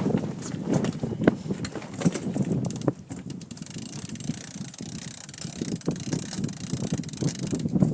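Rapid clicking and knocking of deck gear on a sailing yacht, ratchet-like, over a steady rumble of wind and water. A high hiss joins about halfway through and stops just before the end.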